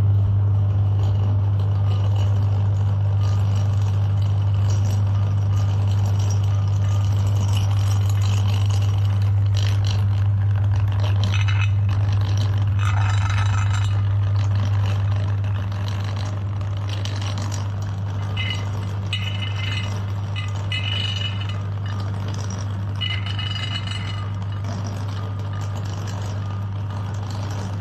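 Electric meat grinder running with a steady low motor hum, with irregular rattling, clinking and scraping as chocolate is fed through it; the hum drops slightly about halfway through.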